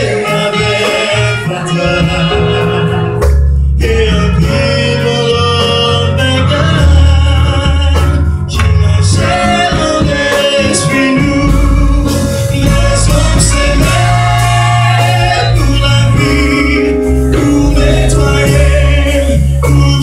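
A man singing a gospel song into a microphone, amplified, over instrumental accompaniment with held bass notes.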